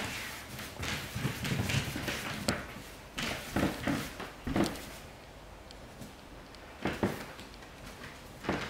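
A French Bulldog puppy's claws clicking and scrabbling on a hardwood floor in irregular bursts, easing off briefly past the middle, then two sharp taps near the end.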